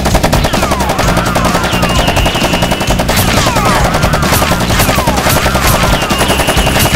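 Automatic gunfire sound effect: a continuous, rapid stream of shots with repeated swooping whines and, twice, a high steady ring, dubbed over foam-blaster firing.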